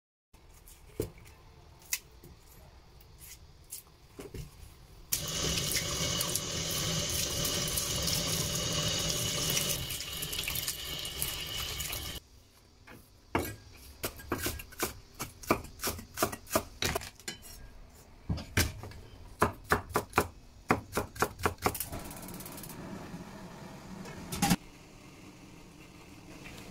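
Tap water running into a stainless steel sink as scallions are rinsed by hand, the flow stopping after several seconds. Then a cleaver chops scallions on a bamboo cutting board in quick runs of strokes, with a single knock near the end.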